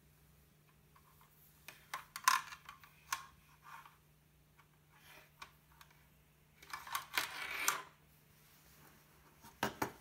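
Clicks and clatter of a USB cable and its plug being handled on a wooden desk, in three short bouts: about two seconds in, about seven seconds in, and just before the end.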